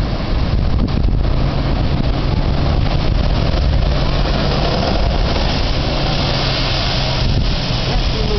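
Heavy surf washing over a lava shelf and the Spouting Horn blowhole blasting a spout of seawater, a rushing hiss of spray that is loudest about five to seven seconds in. A steady low hum runs underneath.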